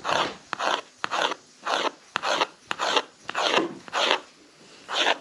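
A knife cutting rolled noodle dough into strips on a flour-dusted metal tray: a regular series of short rasping strokes, about one and a half a second, with a brief pause near the end.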